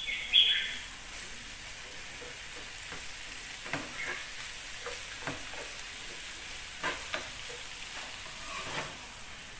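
Snails and shredded banana flower sizzling in a nonstick frying pan while chopsticks stir them, with scattered clicks and scrapes of the chopsticks against the pan. A sharp, ringing scrape about half a second in is the loudest sound.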